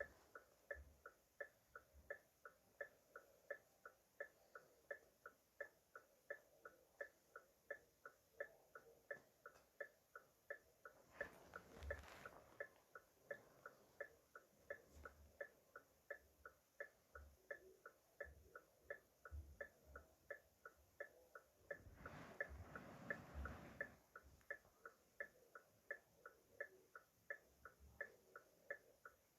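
Car hazard warning lights' flasher clicking steadily, about two to three clicks a second. Two short bursts of rustling noise come through about eleven seconds in and again about twenty-two seconds in.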